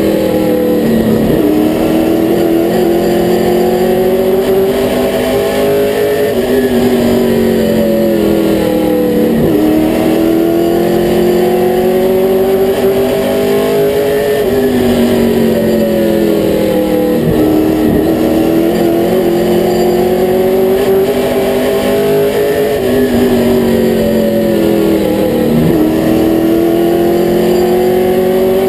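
A limited late model race car's V8 engine, heard from inside the cockpit at racing speed. Its pitch falls away as the driver lifts into each turn and climbs again as he gets back on the throttle down each straight, repeating about every eight seconds.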